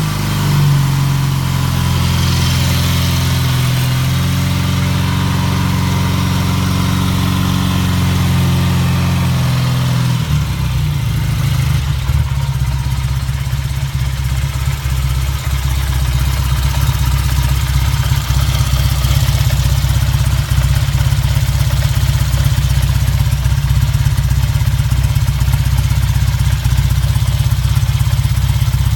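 Triumph 5TA Speed Twin's 500 cc parallel-twin engine running at idle. About ten seconds in, the steady note changes to a lower, lumpier beat with the individual firing pulses audible.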